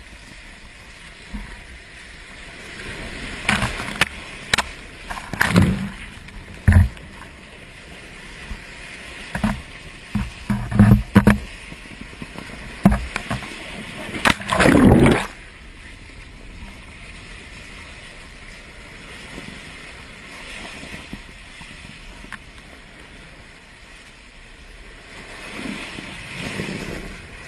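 Seawater surging and splashing where molten lava pours into the ocean, over a steady rushing noise. A run of loud, irregular splashes and bursts comes between about three and fifteen seconds in, the longest about fourteen seconds in, then it settles to the steadier rush.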